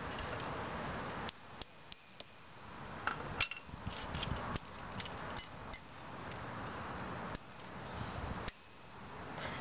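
Scattered small clicks and clinks of metal hand tools, locking pliers among them, being handled against a sandal sole and a concrete floor, over a steady background hiss that drops away abruptly several times.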